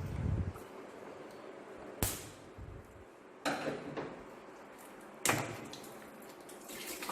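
Four sharp metal knocks and clanks, spread a second or two apart, from tools and parts being worked on a car's cooling system during radiator removal. Near the end a steady hiss starts up: coolant beginning to run out.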